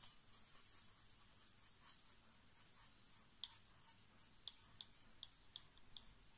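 Faint dry rustle and hiss of wood shavings and sawdust being poured into a stainless-steel bowl, with a few light ticks in the second half.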